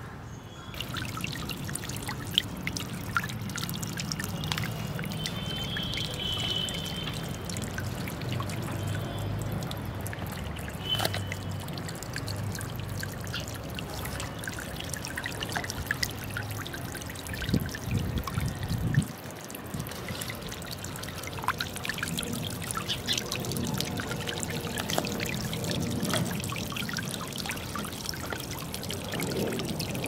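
Small floating solar-powered fountain pump spraying a jet of water that falls back into a tub of water, a steady splashing and trickling of droplets.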